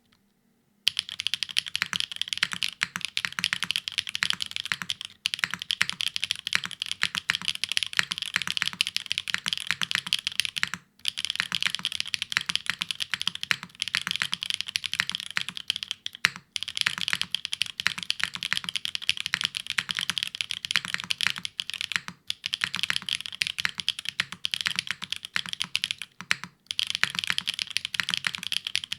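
Fast continuous typing on a Spyder TKL mechanical keyboard with factory-lubed Gateron X Siliworks Type R tactile switches on a PP plate, with no foam. It starts about a second in, and the steady clatter of keystrokes stops briefly about every five seconds.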